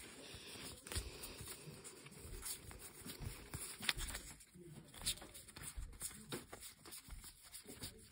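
Faint, irregular soft clicks and rustling of a stack of board game cards being handled and thumbed through.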